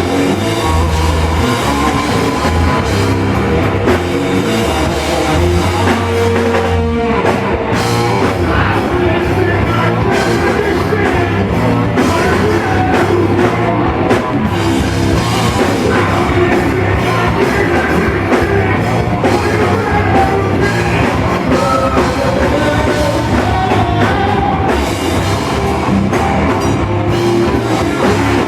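A rock band playing loud, with guitar, drum kit and singing.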